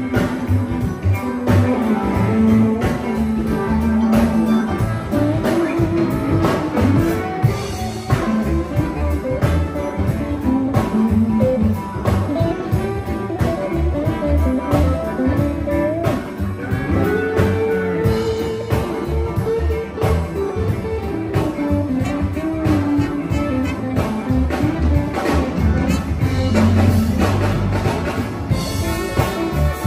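Live blues band playing: electric guitars with bending lead lines over a drum kit keeping a steady beat.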